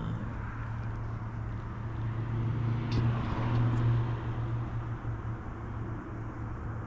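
A motor vehicle's engine hum that builds to its loudest about halfway through, then eases off.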